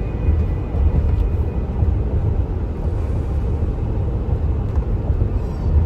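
Steady road and engine rumble of a moving car, heard inside the cabin, deep and even.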